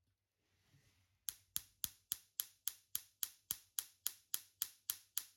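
Tesla coil firing in a run of sharp, evenly spaced electric snaps, nearly four a second, each dying away quickly. The snaps start about a second in, after a faint hiss.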